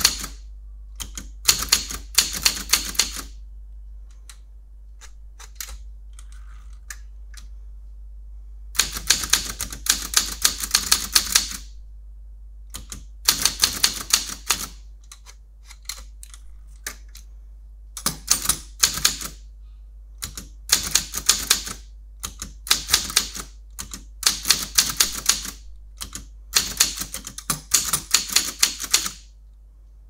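Typewriter being typed on, its typebars striking the paper in quick runs of keystrokes separated by short pauses, with one longer pause of about five seconds shortly after the start.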